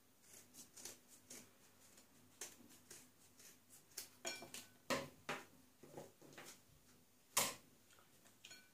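Light clicks, taps and rustles of a cardboard cream carton being handled over a glass mixing bowl, with one sharper click a little after seven seconds in.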